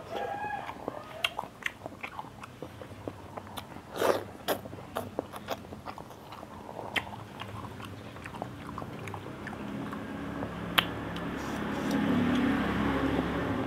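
Close-up chewing and biting of seblak noodles, with scattered sharp clicks of spoons against ceramic bowls. From about two-thirds in, a passing road vehicle's engine grows louder underneath.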